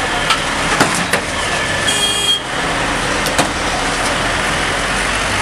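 Loud, dense street noise with several sharp knocks or cracks, and a brief high horn-like tone about two seconds in.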